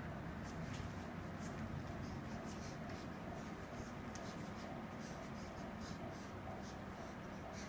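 Irish Setter and cat scuffling on a wooden floor: light scratching and many faint claw ticks over a steady low room hum.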